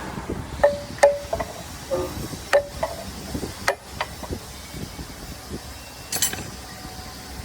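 Sharp metal-on-metal taps and clinks on the steel blades and rotor of a copper wire granulator during blade clearance adjustment, several leaving a brief ringing note. The strikes come irregularly, about eight in the first four seconds and one more about six seconds in.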